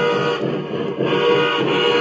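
Guitar music playing over the running sound of a Lionel O-gauge model train rolling along the track.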